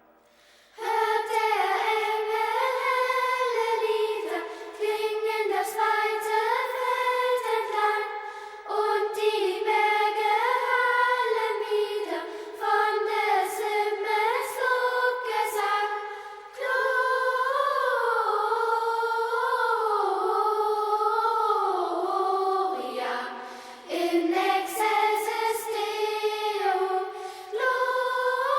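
A choir of high voices singing a song in phrases of a few seconds, starting about a second in, with no low instruments under it.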